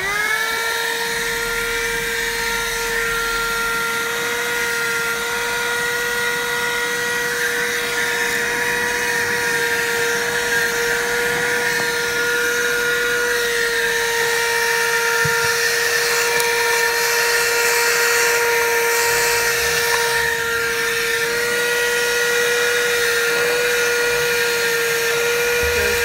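Besteek 12-volt, 120 W handheld car vacuum cleaner switching on and spinning up in under a second, then running at a steady high whine while vacuuming the car's floor carpet.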